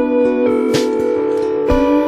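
Instrumental break of a pop ballad without vocals: sustained chords with a guitar strummed about once a second.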